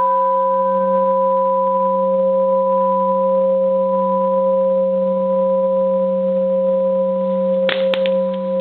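Bronze Buddhist temple bell ringing on after a light strike with a plastic hammer: a deep hum under two clear higher tones, holding nearly steady. A short knock comes near the end.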